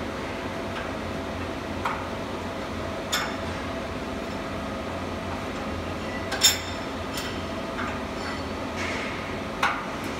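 Steel parts clinking and knocking against a steel welding jig as it is loaded by hand: several sharp metallic clinks, the loudest about six and a half seconds in, over a steady hum of workshop machinery.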